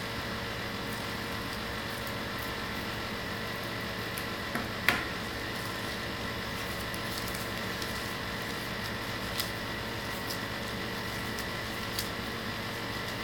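Steady hiss and hum of room tone, with a few faint clicks and taps from scissors and paper being handled on a cloth-covered table; the sharpest click comes about five seconds in.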